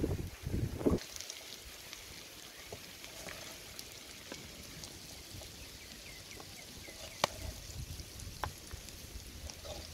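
Wooden spatula scraping and knocking against a metal wok while fried chicken is scooped out, with a few sharp clicks, over a faint crackle of hot oil. Wind buffets the microphone in low gusts about a second in.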